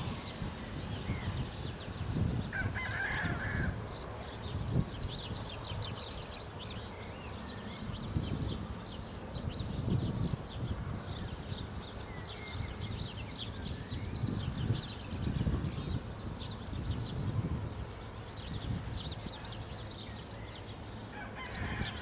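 Small birds chirping in a rapid, continuous chatter, with one lower honk-like bird call about three seconds in and another near the end. Wind gusts rumble on the microphone underneath.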